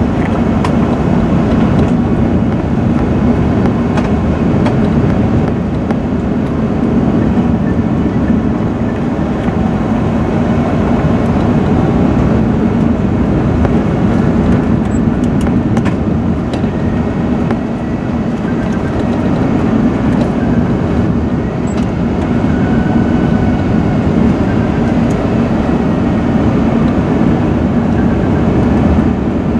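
Steady cabin noise in an Airbus A380 seated over the wing: the Rolls-Royce Trent 900 turbofans and airflow past the fuselage, a constant loud rush with a strong low drone underneath.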